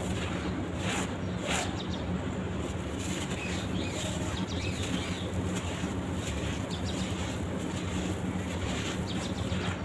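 Crumbly charcoal-sand-cement blocks being broken up, with scattered crunches and crackles over a steady low hum.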